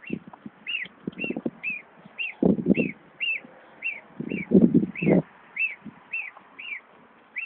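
Three-week-old gosling peeping: a steady run of short peeps that rise and fall, about two a second. Three louder bouts of low scuffing and rustling come in between.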